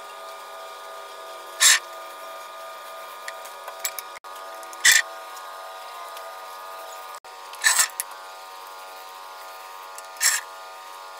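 A small paint roller working clear sealer onto a concrete countertop: four short wet swishes, roughly every three seconds, over a steady background hum.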